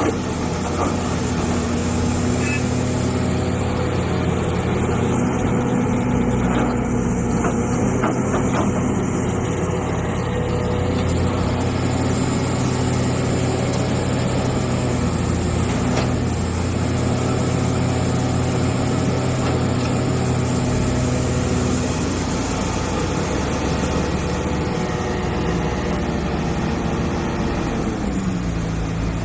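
Hitachi EX450 hydraulic excavator's diesel engine running steadily while digging, with a few faint knocks. Its pitch drops near the end as the engine load changes.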